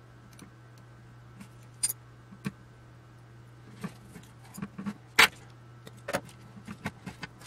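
Hand tools working a bundle of aircraft wiring: scattered clicks, snaps and light metallic rattles, the sharpest snap about five seconds in, over a low steady hum.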